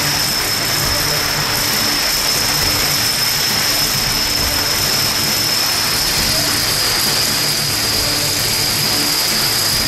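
Plastic dominoes pouring off a toppling domino wall onto a hard floor: a dense, unbroken clatter at a steady level.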